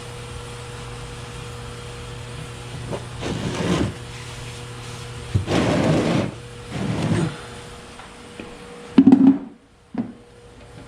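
Workshop handling noises over a steady low hum: three short scraping, rustling bursts, then a loud knock about nine seconds in.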